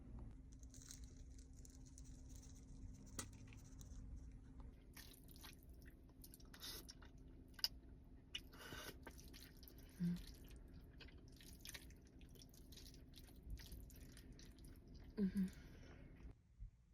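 Faint eating and food-handling sounds from takeout: chewing, with scattered small clicks and rustles, over a steady low hum that stops shortly before the end.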